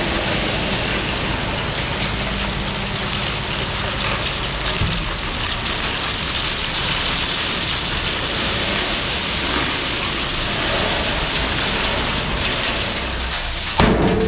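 Diesel heavy equipment running steadily under a dense hiss and rattle, the kind made by crushed gravel being moved. There is a sudden knock near the end.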